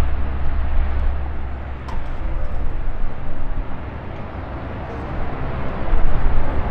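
Loud aircraft engine rumble at an airfield, deep and steady. It eases about four seconds in and swells again near the end.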